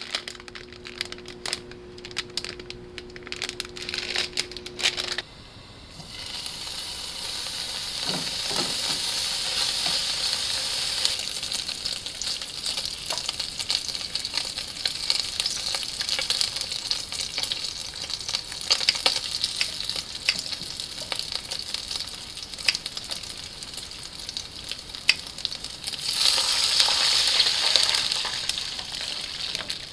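Crinkling plastic ramen packet first, then strips of pork jowl sizzling steadily as they fry in a nonstick frying pan, with small clicks from tongs turning them. Near the end, water is poured into the hot pan and the sizzle swells into a louder hiss for a couple of seconds.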